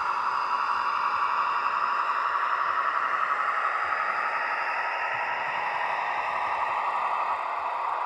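Sound decoder of a Roco H0 model class 218 diesel locomotive playing its diesel engine sound through a small onboard loudspeaker: a steady thin drone with almost no bass. Its pitch sags slightly in the second half and rises again near the end.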